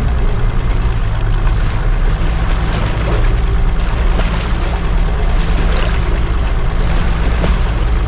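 Boat engine idling steadily, with water slapping and washing against the hull and wind on the microphone.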